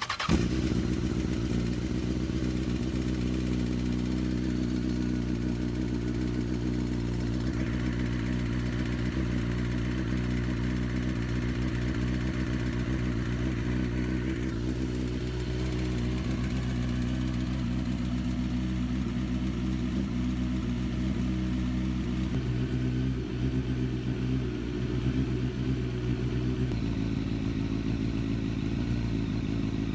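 Honda CBR929RR inline-four sportbike engine, freshly started, idling steadily through a newly fitted TOCE aftermarket exhaust.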